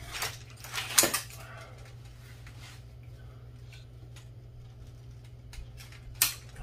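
Rustling and a few sharp knocks from an aluminium walker being gripped and shifted while a man strains to rise out of a recliner, the loudest knock about a second in and another near the end, over a steady low hum.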